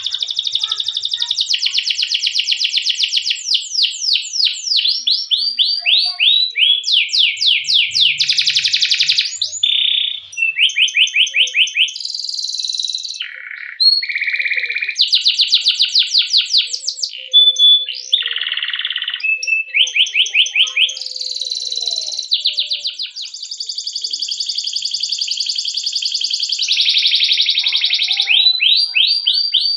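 Domestic canary singing a long, unbroken rolling song: runs of rapidly repeated sweeping notes and trills, switching to a new phrase every second or two without pausing. It is a master song used to teach young canaries to sing.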